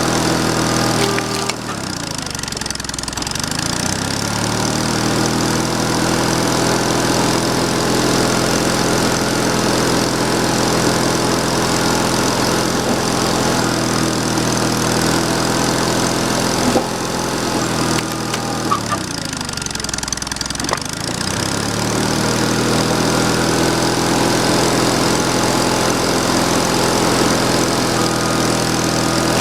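Sawmill engine running steadily. Its speed sags and picks back up twice, a couple of seconds in and again about two-thirds of the way through.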